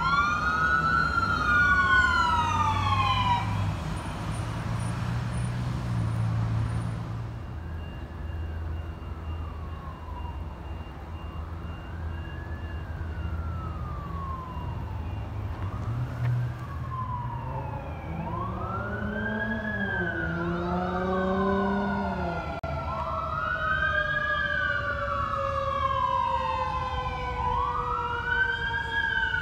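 Fire-rescue vehicle sirens wailing, rising and falling in pitch. One is loud at first and fades within a few seconds, and a fainter one carries on. Past the halfway point several sirens overlap and grow louder, one with a long, slowly falling tone, over a low engine and traffic rumble.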